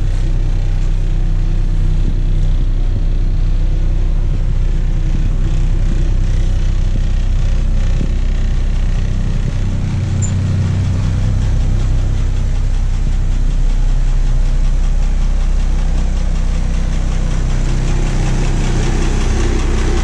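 International DT466 inline-six diesel in a 1986 International S1800 school bus idling steadily, still warming up after a cold start at about 35 degrees, heard from inside the passenger cabin.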